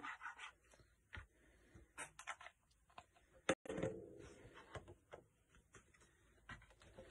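Quiet handling sounds on a craft table: small taps and clicks as a plastic squeeze bottle of puff paint is picked up and applied to a card, with one sharp click about three and a half seconds in.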